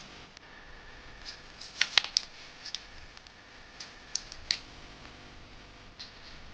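A sheet of A4 paper being handled and folded: short crackly rustles and sharp creasing clicks, the loudest cluster about two seconds in and a few more near four and a half seconds.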